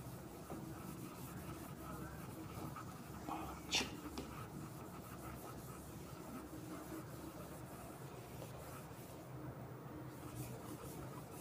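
Faint rubbing strokes of a whiteboard being wiped clean by hand, with one short, sharp sound about four seconds in.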